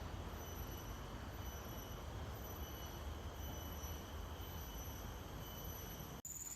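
Steady outdoor background noise: a low rumble with faint, steady high tones, typical of insects in a tropical forest. A cut near the end brings in a louder, steady high-pitched insect drone.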